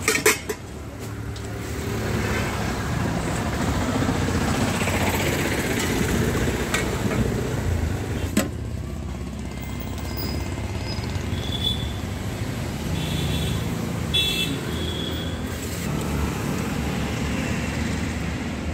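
Steady road traffic running past, with a couple of sharp clinks of a steel serving spoon against steel pots, one right at the start and one about eight seconds in.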